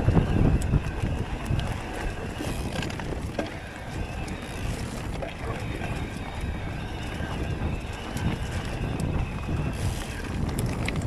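Focus Jam2 e-mountain bike riding along a dirt trail: a steady rumble of tyres over the ground with wind buffeting the camera microphone, and scattered clicks and rattles from the bike.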